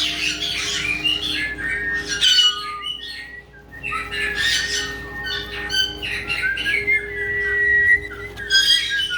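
Caique parrots squawking and chirping in many quick, short calls, with a drawn-out whistled note about seven seconds in.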